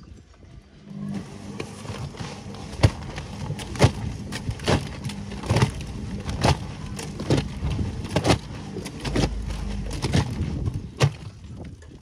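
Whirlpool front-loading washing machine drum starting to tumble about a second in, with the door open. A steady motor hum runs under wet, soapy laundry and water slapping and splashing about once a second, easing off briefly near the end.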